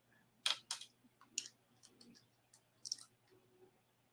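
Faint, scattered light clicks and ticks of small metal jewelry being handled, a pair of hook earrings turned over in the fingers: two clicks about half a second in, another a second later, and a quick pair near the end.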